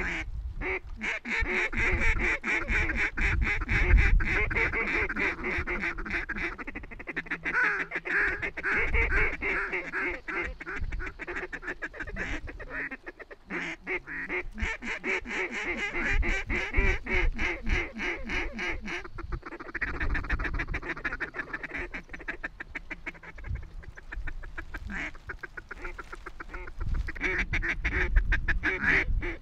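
A huge flock of ducks calling in flight overhead: many overlapping calls at once, a continuous din that swells and eases by turns, with a low rumble underneath.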